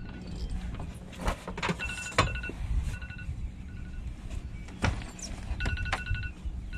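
Short electronic beeps at one steady pitch, sounding on and off at uneven intervals, with a few sharp knocks and handling clatter on a boat, loudest about two seconds in and again near five seconds.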